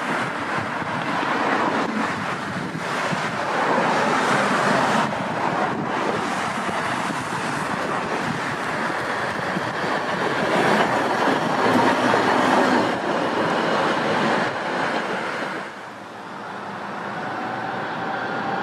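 A Tatra T4D tram set running along street track, its wheels and running gear rumbling and growing louder as it comes close, with a few sharp knocks from the track. It is loudest as it passes, and drops away shortly before the end.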